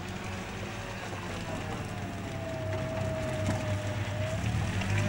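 Land Rover engine running steadily under load, with a high whine that sags and then rises again.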